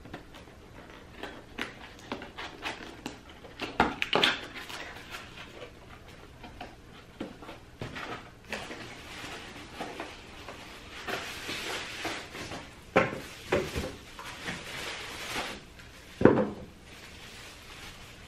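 Waffle-maker cardboard box and its plastic packaging being handled and opened: irregular knocks and scrapes of cardboard, with a longer stretch of plastic crinkling in the middle and a sharp knock near the end.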